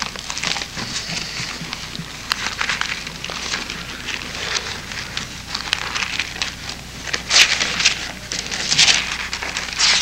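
Paper pages of a Bible being leafed through and rustled on a pulpit, with louder page rustles about seven and nine seconds in.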